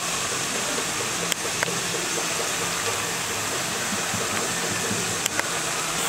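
Thattai (flat rice-flour discs) deep-frying in a kadai of hot oil: a steady bubbling sizzle with a few sharp pops.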